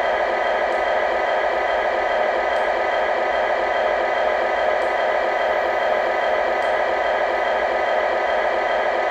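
Electronic diesel-truck idle sound from an RC truck's onboard sound unit, playing through its small speaker. It is a steady, unchanging drone with almost no deep bass.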